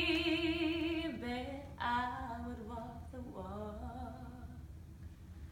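A woman singing unaccompanied, holding a long note with vibrato, then a softer phrase of a few lower notes that fades out about four and a half seconds in.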